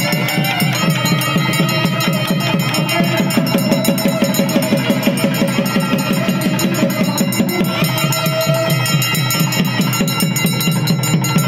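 Loud music with fast, steady drumming under a wavering melody line.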